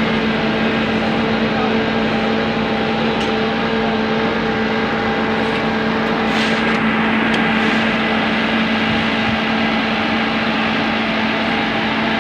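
Diesel engine of road-paving machinery running steadily at a constant speed, a continuous even drone with no revving.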